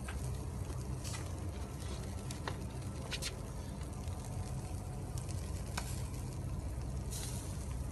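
Chicken legs sizzling on a wire grill over hot charcoal, with a few sharp pops and crackles.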